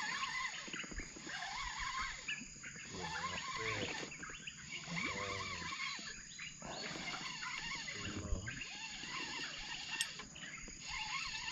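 A dawn chorus of wild animals from riverside jungle: many overlapping chirping and trilling calls from birds, insects and frogs. Two brief clicks come about 8 and 10 seconds in.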